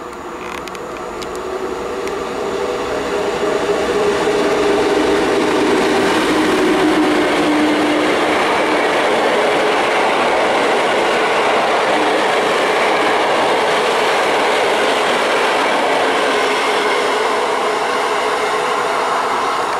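Passenger train hauled by a Polish EP07 electric locomotive passing through a station. It grows louder over the first four seconds, with a few low tones sliding down, then holds as a steady loud rush of coaches running over the rails.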